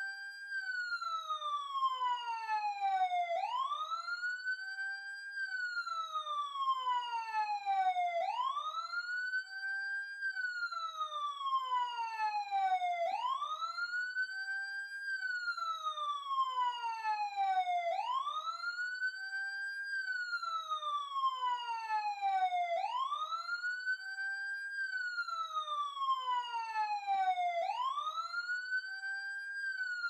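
Emergency siren wailing: each cycle sweeps quickly up in pitch, then falls slowly and evenly, repeating about every five seconds.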